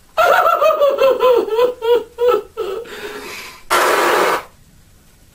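A man's voice in exaggerated mock sobbing: a string of pulsing, falling wails for about two and a half seconds. Near the end comes one loud, noisy blow of the nose into a sweater sleeve.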